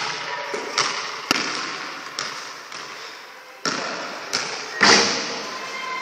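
A basketball striking a hard sports-hall floor about seven times at uneven intervals, the loudest thud near the end, each impact ringing on in the hall's long echo.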